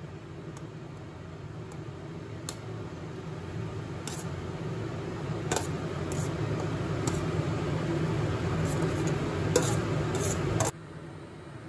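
Steel spoon scraping and clinking against a steel pan as sautéed shallots and tomatoes are pushed out into a mixer-grinder jar: several sharp clinks over a steady low hum that grows louder and cuts off suddenly near the end.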